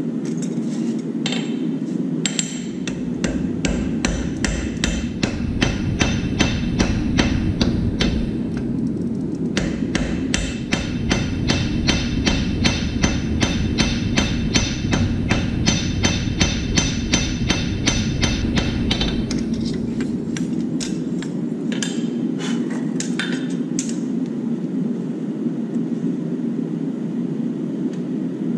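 Farrier's hand hammer striking a red-hot steel horseshoe on the anvil, an even run of ringing blows about three a second, drawing a toe clip out over the anvil edge. The blows stop about two-thirds of the way through with a few last taps, leaving a steady hum.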